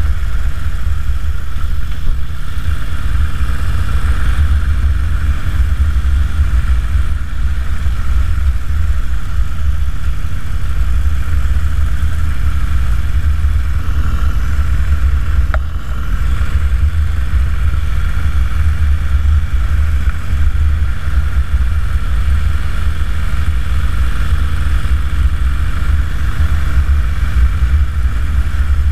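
A 2009 Harley-Davidson Dyna Super Glide's V-twin engine running steadily while cruising, under a heavy low wind rumble on the microphone. There is a brief click about halfway through.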